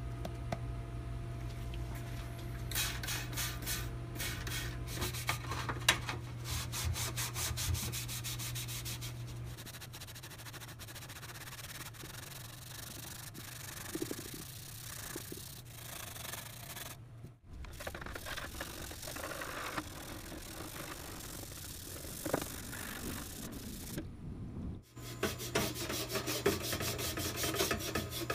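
Scrubbing a greasy, rusty sheet-metal pan with a scouring pad: runs of quick back-and-forth rubbing strokes, broken off briefly twice.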